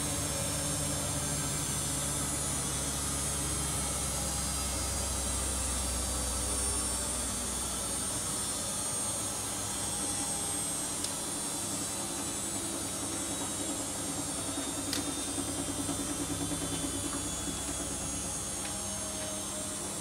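Two front-loading washing machines, a Siemens Siwamat IQ 716 and a Bosch Aquasensor WFP3231, running together with their drums turning: a steady machine hum and whir. The deepest part of the hum drops away about eight seconds in, and a faint rhythmic pulsing comes in later.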